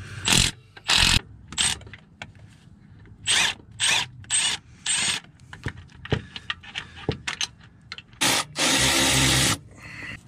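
Milwaukee M12 Fuel cordless tool spinning out 13 mm transmission bellhousing bolts: a string of short bursts, then one longer run of about a second near the end.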